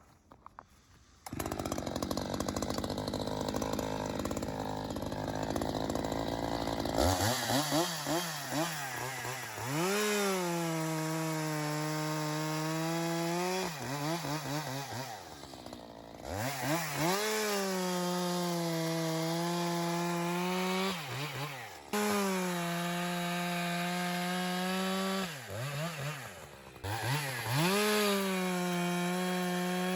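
Echo CS-620 two-stroke chainsaw with a 24-inch bar cutting ash. After about a second of quiet it runs at lower speed for some seconds. It then rises to full throttle four times, holding a high, steady pitch for several seconds each time as it cuts and dropping back in between.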